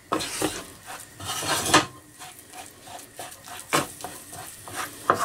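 Wooden spatula scraping and pressing tomato paste and spices across a frying pan in irregular strokes, with knocks against the pan, the loudest about two seconds in and again near four seconds. The spices and paste are being fried in ghee.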